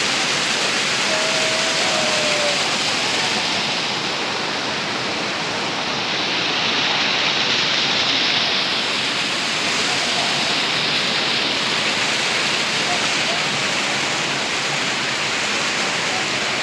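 Waterfall: the steady, loud rush of falling water, an even hiss without a break.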